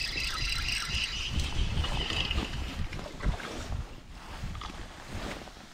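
Wind buffeting the microphone on an open kayak, with water sloshing around the hull; a fast run of high ticks through the first two and a half seconds.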